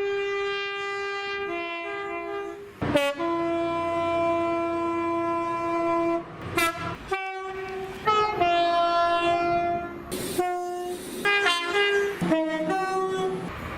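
Train horns sounding one after another, spliced together from different British trains: long held single blasts alternating with quick two-note high-low calls, each cut off abruptly as the next begins.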